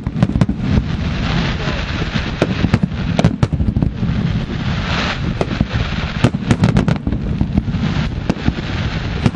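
Aerial firework shells bursting in quick succession: many sharp bangs, several a second, over a constant low rumble.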